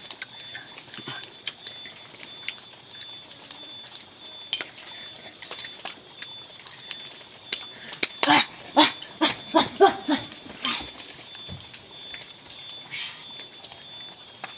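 An animal calling: a quick run of about six short calls between about eight and ten and a half seconds in. Throughout, a steady high-pitched hum and scattered light clicks and rustles.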